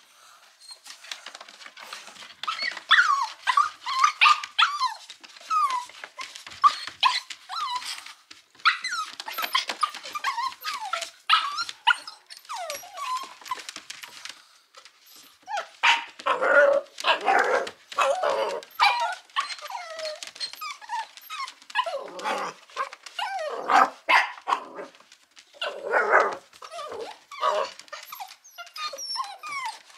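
Puppies yapping and barking at a kitten in quick, high-pitched yips, turning louder and lower about halfway through.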